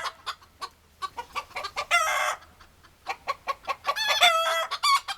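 Backyard chickens clucking in a run of short, quick clucks, with a harsh squawk about two seconds in and a longer, held call near the four-second mark.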